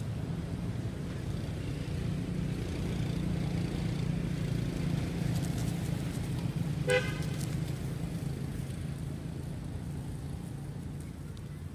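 Steady low hum of a running motor vehicle engine, with one brief high-pitched toot about seven seconds in.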